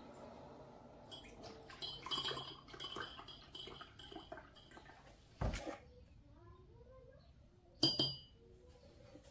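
Milk poured from a carton into a ceramic mug that has a spoon in it, with a run of small clinks of spoon and cups. A dull knock about halfway through, then one sharp, ringing clink of a spoon against a glass mug near the end.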